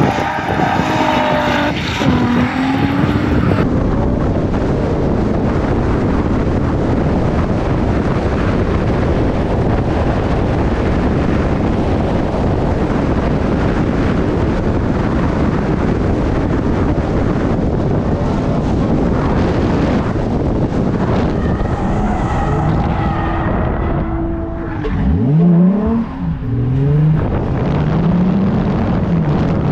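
Nissan 350Z V6 drift car on track: first heard sliding past from the trackside, then from a hood-mounted camera, running hard under heavy wind noise. Near the end the engine note falls away and then climbs again in several steps as it revs up through the gears.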